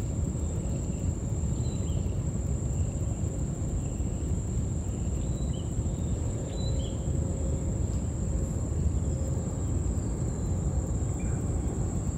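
Outdoor ambience of insects singing in one steady, high-pitched drone over a low rumble, with a few short, high chirps scattered through.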